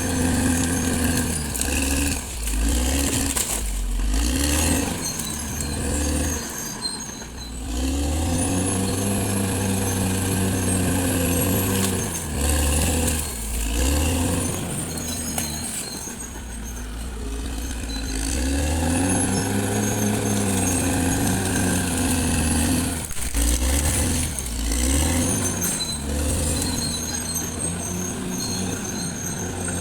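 Caterpillar D6R XL bulldozer's diesel engine working under load, its pitch rising and falling again and again as the machine pushes and eases off. A thin high whine rises, holds for a few seconds and drops away twice.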